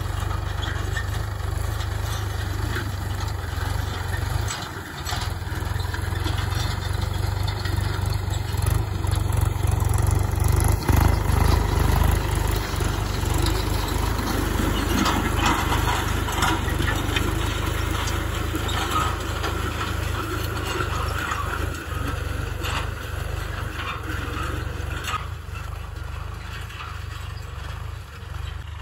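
Mahindra Yuvo Tech+ tractor engine running steadily under load as it pulls a disc harrow through stubble, the sound fading over the last few seconds as the tractor moves away.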